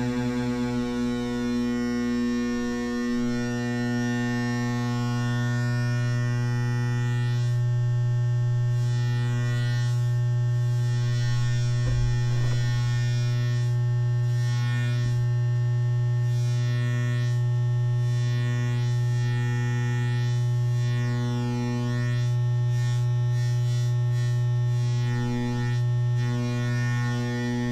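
DIY analog modular synthesizer droning: one steady low buzzy tone thick with overtones. About three seconds in the low end swells, and a higher part pulses on and off at uneven intervals.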